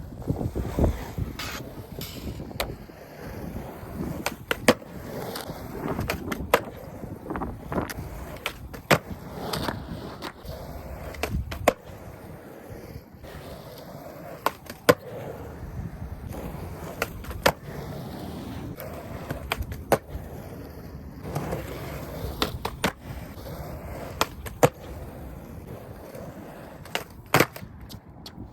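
Skateboard wheels rolling on pavement, with many sharp clacks of the board hitting the ground spread throughout: tricks being popped and landed.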